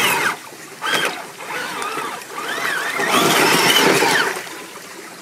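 Drivetrain of a Traction Hobby Cragsman Pro 1/8-scale RC crawler whining, its pitch rising and falling as the throttle is worked, over splashing water as it wades through a stream. The whine cuts out just after the start, then returns about a second in for a few seconds.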